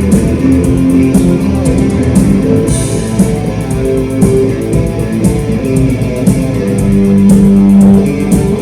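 Symphonic rock played live: electric guitar and symphony orchestra playing a slow instrumental melody in long held notes, over a beat marked by repeated cymbal or drum strokes.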